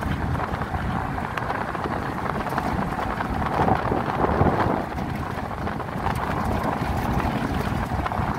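Car driving along a muddy dirt road, heard from inside the cabin: a steady rumble of engine and tyres with wind noise and scattered faint ticks.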